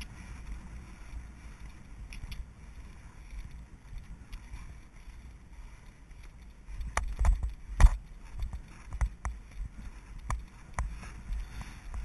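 Horse galloping on turf, heard from the saddle: a low rumble, then from about seven seconds in a run of dull hoofbeat thuds about twice a second, the loudest near eight seconds.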